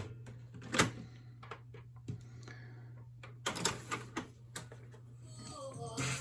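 Sharp plastic clicks and clacks from the Panasonic RX-DS620 boombox's cassette deck as it is operated for tape playback, about a dozen spread over several seconds. Near the end, a tape starts to play faintly.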